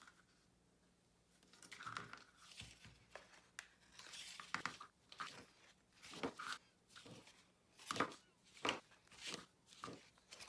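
Double-sided score tape being pulled and torn into short pieces and pressed onto cardstock frame corners, with a string of short, irregular rustles and snaps and the crinkle of handled card.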